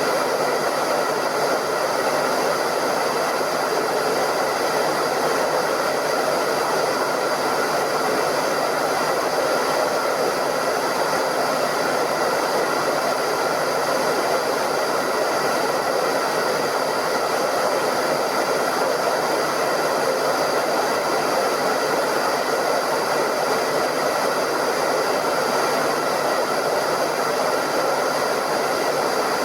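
Hairdryer running continuously: a steady rushing blow of air with a faint high whine from its fan motor, unchanging throughout.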